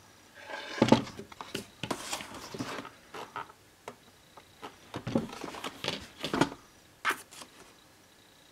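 Handling noise: irregular rustling, taps and clicks of a shrink-wrapped cardboard box being handled, in bursts that stop about a second before the end.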